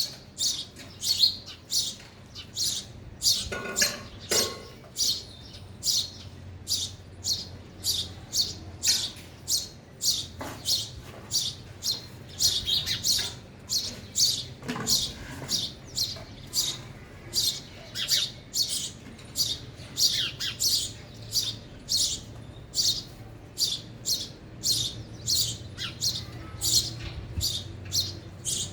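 House sparrow chirping over and over, short high chirps at about two a second.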